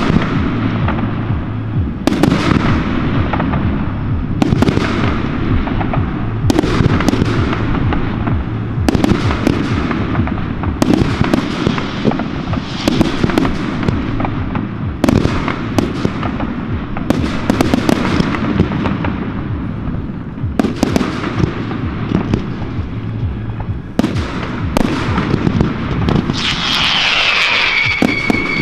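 Fireworks display: aerial shells bursting with sharp bangs about every two seconds over continuous crackling. Near the end a whistling tone falls in pitch.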